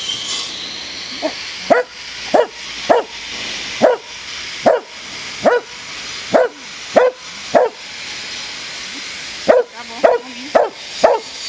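A dog giving a long series of short, sharp barks, roughly one every half second to second, pausing for about two seconds and then barking in a quicker run near the end.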